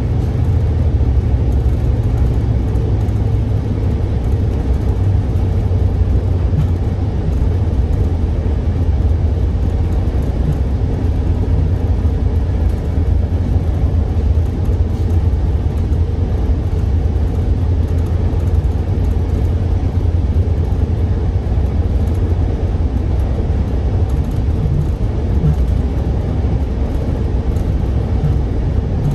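Diesel-hauled commuter train heard from inside the passenger car while running: a steady low rumble of wheels and running gear on the track.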